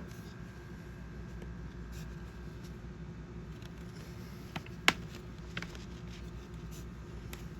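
Hard plastic toy parts being handled and fitted together: faint scattered ticks and one sharp plastic click about five seconds in, over a steady low hum.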